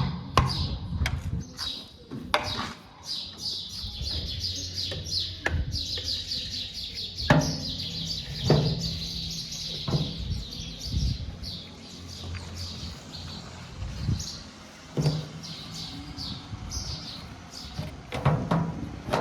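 Birds chirping rapidly and continuously over a diesel engine running steadily. Several sharp knocks stand out, the loudest about seven and eight and a half seconds in and again near fifteen seconds.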